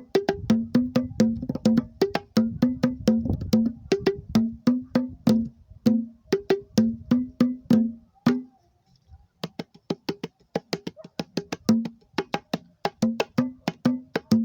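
Homemade wooden cajón-style box drums, built to serve as batá or conga drums, played in a steady rhythm that alternates a low tone and a higher tone. The playing stops for about a second past the middle, then starts again, softer at first.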